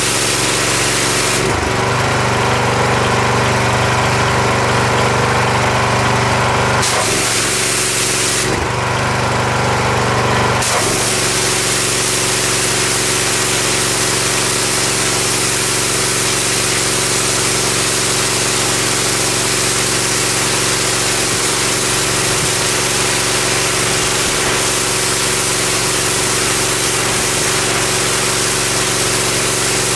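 Pressure washer running steadily with the hiss of its high-pressure spray on a sidewalk. The spray cuts out twice in the first ten seconds or so, for about five seconds and then about two, while the engine keeps running.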